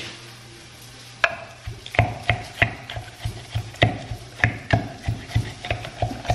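A utensil knocking against the inside of a glass container in a quick, even run of ringing clinks, about three a second, starting about a second in, as cucumber and lemon are worked in the container.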